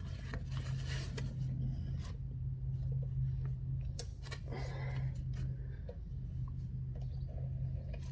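Small objects being handled and set down, with scattered light clicks and rustles over a steady low hum.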